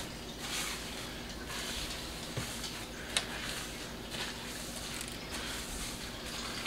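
Scrub sponge rubbing back and forth over a kitchen countertop, a soft swish with each stroke, about one to two strokes a second. A single sharp tick comes about three seconds in.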